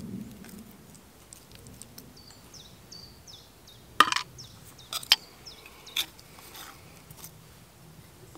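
A small hammer knocking sharply on copper four times: one loud strike about four seconds in, then a quick pair and a last knock over the next two seconds. Just before, a bird calls a quick run of short falling chirps.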